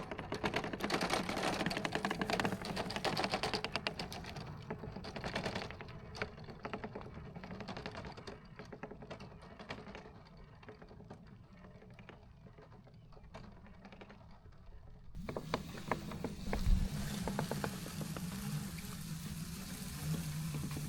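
Robot lawn mower at work: a dense run of rapid clicking and crackling that thins out over the first half. About 15 seconds in it changes abruptly to a steady low motor hum, with one thump soon after.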